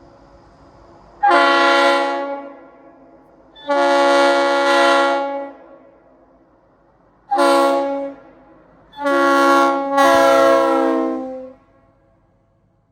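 Nathan AirChime RS3L three-chime locomotive air horn blowing a chord in four blasts: long, long, short, long. The pitch sags slightly as each blast trails off, and the last blast has a brief break about two-thirds of the way through. This is the long-long-short-long pattern of a grade-crossing signal.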